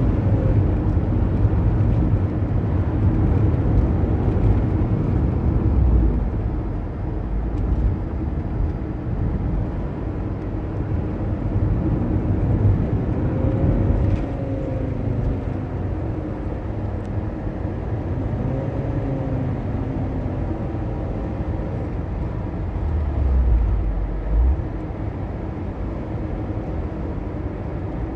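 A T4 being driven with steady engine and road rumble from its drivetrain. A faint whine rises and falls in pitch a few times, the abnormal transmission noise that goes with the gearbox slipping.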